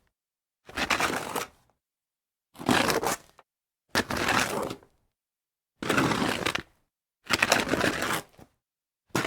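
A series of slides on dirt: about five separate gritty scrapes, each lasting under a second, with a sixth starting at the end and silence between them.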